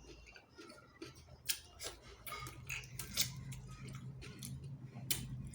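Close-miked eating of chicken feet curry: chewing, with irregular sharp clicks and smacks. The loudest come about a second and a half in, around three seconds and near the end.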